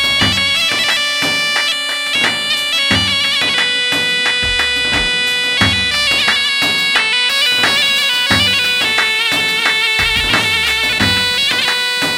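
Arabic wedding dance music in an instrumental break between sung lines: a loud, piercing wind-instrument-like melody of held notes over a regular drum beat.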